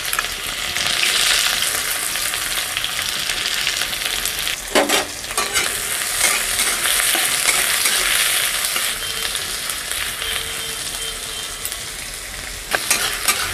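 Chopped onions sizzling in hot mustard oil in a kadai, just put in to fry, with a few knocks as they are stirred.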